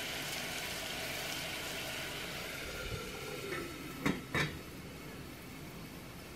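Sugar and water boiling for caramel in a stainless steel saucepan on a gas burner, a steady sizzle. About four seconds in the stainless lid is set back on with two sharp metal clinks, and the sizzle turns quieter.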